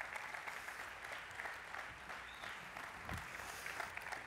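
A congregation applauding, a steady patter of clapping.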